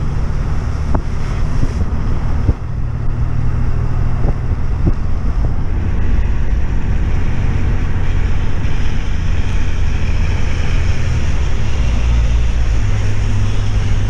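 A vehicle driving along, heard from inside the cabin: a steady low rumble of engine and road noise with wind buffeting the microphone, and a few light knocks in the first five seconds.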